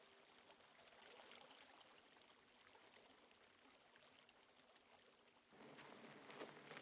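Near silence: a faint, steady hiss of flowing river water, a little louder from about five and a half seconds in.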